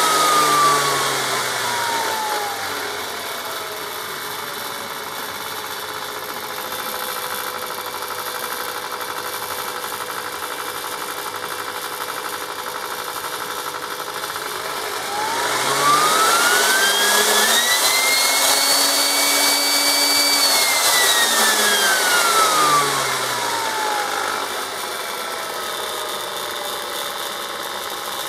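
Hitachi VA-700 Super Mixer blender motor running with an empty jar, its whine sliding down to a low steady speed in the first few seconds as the speed selector is moved. About halfway through it climbs to a much higher pitch, holds there for a few seconds, then winds back down to the low speed.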